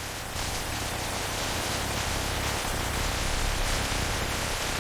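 Potato processing line running: a steady, even hiss over a low hum.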